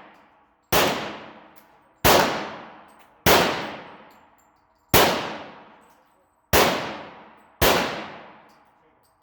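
Uzi 9mm submachine gun firing six single shots, spaced about one to one and a half seconds apart, each sharp report trailing off in a long echo.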